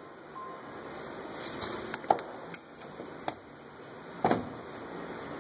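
Scattered plastic clicks and knocks as the air intake duct is worked loose and lifted off the engine: a sharp click about two seconds in, a couple of lighter ones after it, and a longer rattle near the end.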